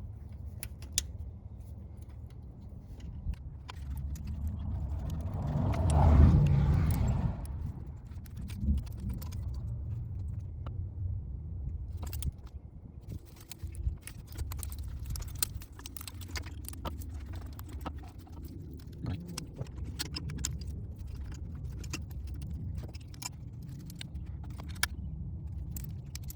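Hand work in a car's engine bay: scattered metallic clicks and clinks of tools, clamps and connectors being handled as parts are refitted to the intake manifold, over a steady low hum, with a louder rustling swell about six seconds in.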